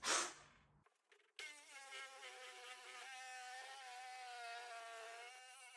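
Cordless reciprocating saw running as it cuts into a wooden wall: a steady whine from the motor whose pitch wavers a little under load, starting about a second and a half in. A brief loud noise comes at the very start, before the saw begins.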